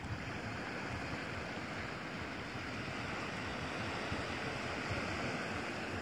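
Shallow seawater washing over rocks at the shoreline, a steady even rush of water.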